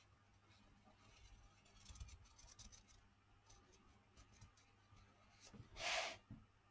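Faint scratching of marker pens on a paper journal page. Near the end, a short, louder rustling slide as the spiral-bound journal is shifted on the table.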